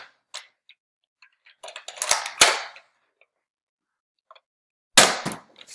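NERF Strongarm dart blaster being primed and fired: a few light clicks, then sharp spring-powered snaps about two seconds in and again near the end.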